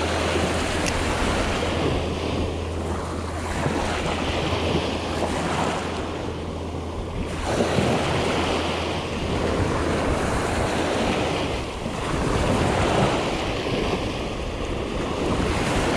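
Small surf waves breaking and washing up the sand at the shoreline, swelling and ebbing every few seconds, with wind buffeting the microphone.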